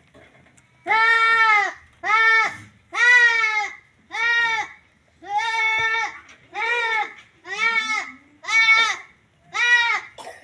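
Young goat kid bleating over and over, about ten high-pitched calls, roughly one a second.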